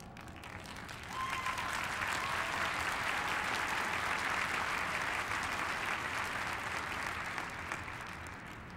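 Large crowd applauding, swelling sharply about a second in and slowly dying away near the end.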